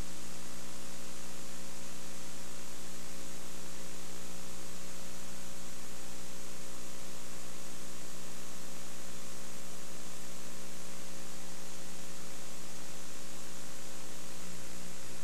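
Steady electrical mains hum, several buzzing tones held perfectly even, under a constant hiss, with no sound from the field. It is the noise of the recording's audio chain while the commentary is silent.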